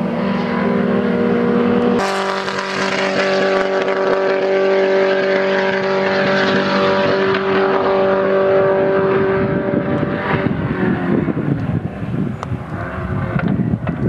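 Midget race car engines running at high, steady revs. A cut about two seconds in brings a louder single engine holding a constant pitch; it fades out at around ten seconds, leaving rougher engine noise with wind on the microphone.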